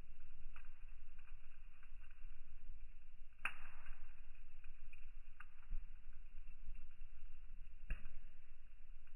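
Log fire crackling, with small pops scattered throughout and two sharper, louder pops, one about three and a half seconds in and one near the end, over a low steady rumble.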